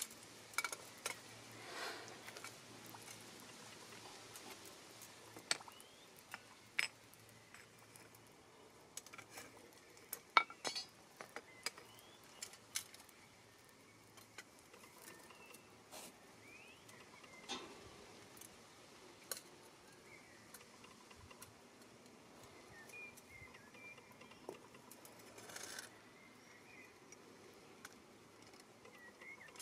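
Faint, scattered clinks and taps of small metal pieces being handled, at irregular intervals, with a few short bird chirps in the background.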